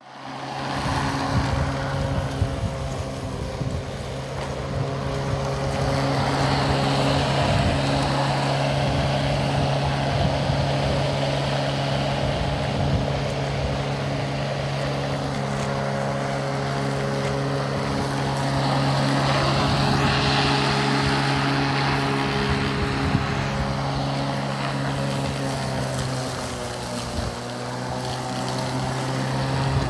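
Corded electric lawn mower running, a steady motor hum with the whirr of the blade cutting through long grass.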